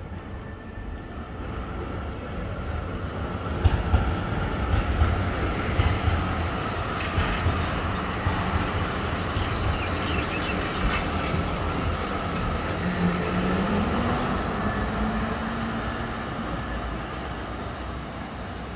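A Zurich city tram passing close on street track: steel wheels rolling and knocking on the rails, with a steady whine. Near the end of the pass a motor tone rises in pitch, then the sound fades as the tram moves away.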